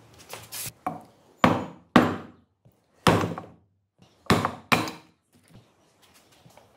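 Hammer blows on a metal drift set in the bearing bore of a Honda Dio 50cc scooter's aluminium transmission case, driving the bearing. A few light taps come first, then five sharp metallic strikes about half a second to a second apart, each ringing briefly.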